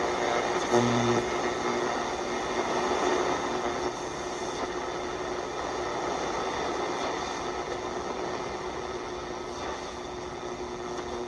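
AM radio static from a vintage RCA clock radio's small speaker: a steady hiss with a faint constant hum tone, tuned to a band with no station coming in.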